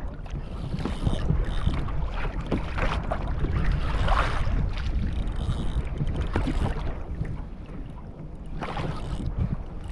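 Wind buffeting the microphone over water sloshing against a kayak's hull in choppy open sea, rising and falling in gusts.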